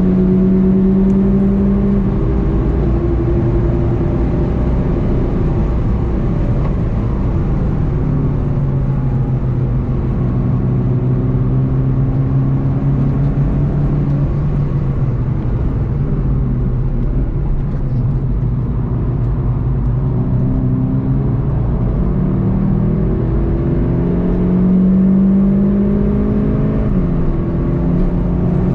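VW Golf GTI TCR's turbocharged four-cylinder engine pulling hard at speed, heard from inside the cabin over road and wind noise. The engine note drops about two seconds in, holds through a long steady stretch, then climbs again and falls sharply near the end as the car shifts gear.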